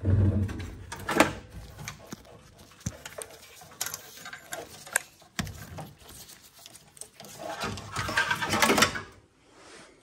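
Hand tools and metal parts of a gas boiler clinking, knocking and scraping as the burner plate is taken off. There are scattered clicks and knocks, a sharp knock about a second in, and a busier stretch of rattling and scraping near the end.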